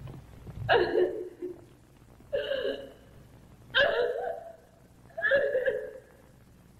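A woman's short gasping sobs, four of them about a second and a half apart, without words.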